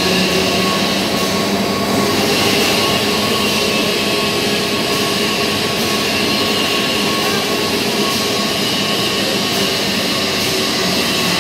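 FLEX PRO 2800 S toilet-paper and kitchen-towel rewinder running: a loud, steady machine noise with several steady hum tones from its turning rollers and drives.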